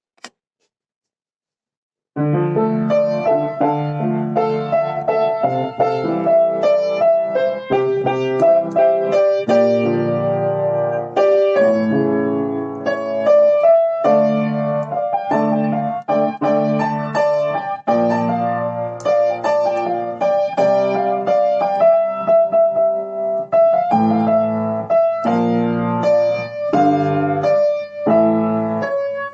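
Piano music, a melody over low chords, starting about two seconds in after a moment of silence.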